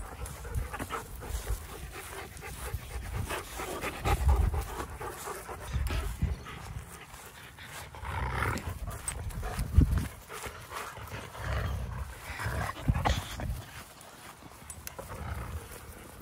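Dogs panting close by, with low rumbles on the microphone coming and going.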